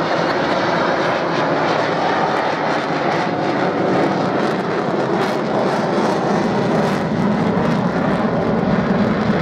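Swiss F/A-18C Hornet's twin General Electric F404 turbofans: steady, loud jet engine noise as the fighter flies its display, growing a little deeper and stronger in the second half.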